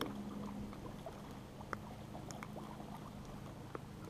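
A small crappie being brought up on a light fishing line and lifted from the water, with a few faint clicks over a steady low hum.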